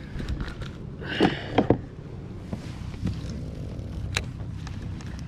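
Hard knocks and clatter of fishing gear handled aboard a plastic kayak, loudest about a second in, with a single sharp click near the end, over a steady low rumble.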